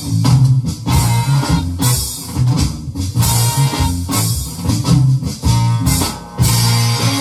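Band music with a bass line and drums, played along to on an electronic drum kit. Drum strokes and repeated cymbal crashes sit over the recording.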